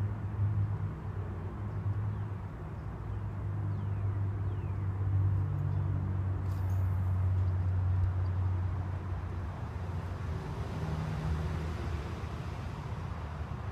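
Low, steady hum of a distant vehicle engine that swells toward the middle and fades again, with a brief click about six and a half seconds in.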